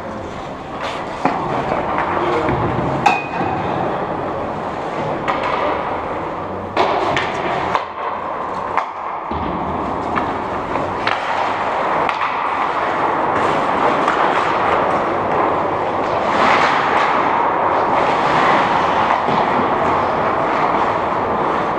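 Ice hockey play: a steady hiss of skates on the ice, with sharp clacks of sticks and puck every few seconds.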